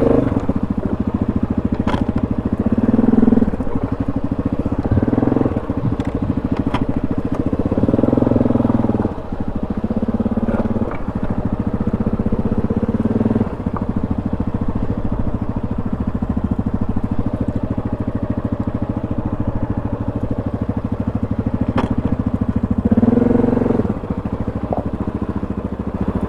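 ATV engine running at low speed, with throttle surges every few seconds and a few sharp knocks.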